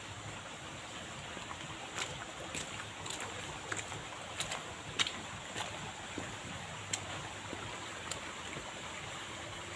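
Footsteps on a muddy, rocky dirt road: sharp steps come evenly about every half second through the middle, then a couple more spaced out. Under them is a steady rushing background noise.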